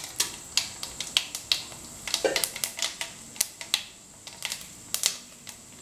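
Mustard seeds spluttering in hot sesame oil in a metal pan: irregular sharp pops and crackles, a few each second, as the seeds burst in the tempering.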